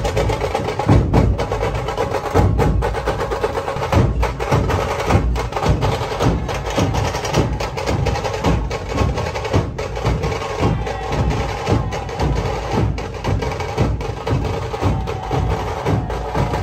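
Dhol-tasha drumming: large barrel-shaped dhol drums beaten in a steady rhythm of deep strikes, about two a second, under fast, sharp stick strokes on a tasha drum.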